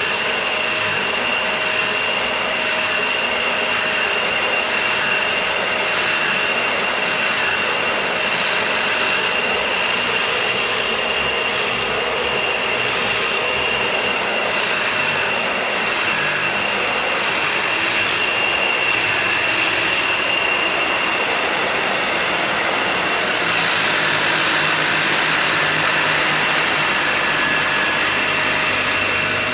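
Vacuum cleaner running steadily on a shag rug: a constant rush of air with a steady high motor whine. The tone shifts slightly lower down a little over three-quarters of the way through.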